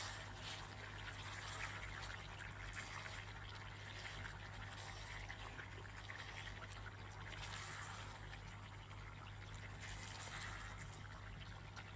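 Tomato stew in a cooking pot being stirred and simmering: faint, irregular wet sloshing and bubbling over a steady low hum.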